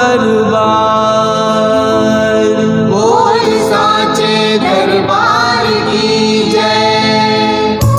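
Music: a Hindi devotional bhajan, with a singer drawing out long held notes over sustained backing chords. The notes slide upward a few times about halfway through.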